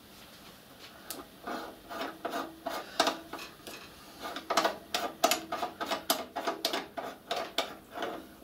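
Quick run of light metallic clinks with a short ring, about three a second, from metal parts on a miniature steam locomotive's water tank being handled.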